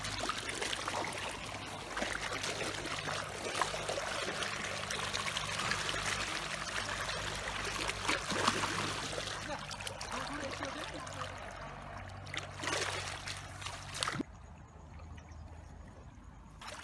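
Water trickling and splashing, a steady wash of running water with frequent small splashes. It cuts off abruptly about fourteen seconds in, leaving only a faint low hum.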